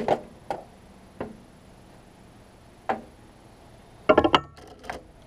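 Hard metallic knocks and clinks of metal tools and parts being handled on a workbench: a few single knocks spaced a second or two apart, then, about four seconds in, a quick rattling cluster of clinks with a brief ringing.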